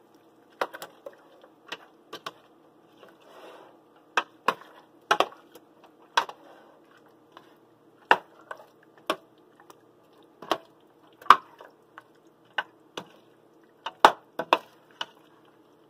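A cooking utensil knocking and scraping irregularly against a pot, about one or two sharp clicks a second, as tomatoes are stirred into spiced potatoes. A steady low hum runs underneath.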